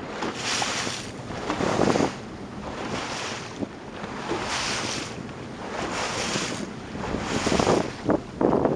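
Wind buffeting the microphone over choppy sea water sloshing around a boat, swelling and fading every second or so, with the strongest gusts near the end.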